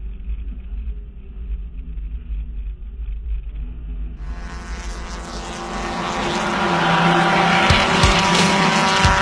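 Muffled music for about the first four seconds, then a sudden change to a Super 1500 class race car's engine running hard at high revs. It gets louder toward the end.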